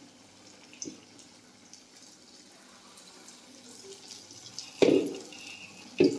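Water trickling and dripping from a spoon into a pan of chhena balls boiling in sugar syrup. The water is added to raise a froth on the syrup. The bubbling is faint, and two sudden louder sounds come near the end.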